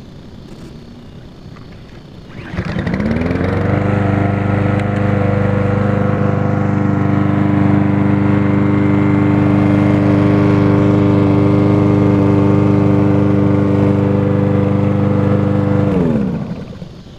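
Snapper lawn mower's Briggs & Stratton 725 EXI single-cylinder engine starting about two and a half seconds in and speeding up within a second to a steady, even run with no surging. This even speed is the sign that the sticking carburettor float has been freed. Near the end the engine is shut off and winds down.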